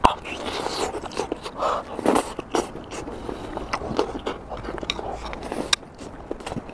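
Close-up eating sounds: a man biting and chewing mouthfuls of spicy hotpot food and rice, with many short, wet mouth clicks.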